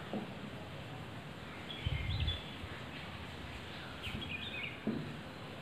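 Felt-tip marker squeaking on a whiteboard as a word is written: a few short, high squeaks in clusters, with soft knocks of the marker on the board, over a low steady background hum.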